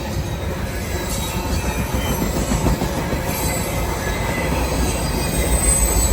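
CSX freight train rolling past, its cars giving a steady low rumble with faint high-pitched wheel squeal that grows a little near the end.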